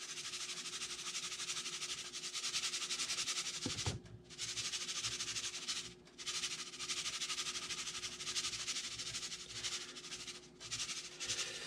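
Italian breadcrumbs shaken from a canister onto fish fillets in a glass baking dish: a quick, even rustling shake, broken by three short pauses.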